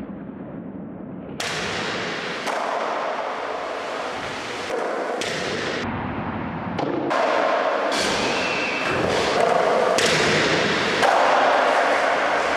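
Skateboard wheels rolling on a concrete floor, with thuds of the board landing and a skater falling, the sound changing abruptly several times.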